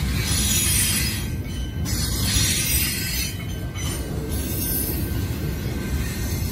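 Train rolling past with a steady low rumble of wheels on the rails and a hiss of rail noise that swells and fades.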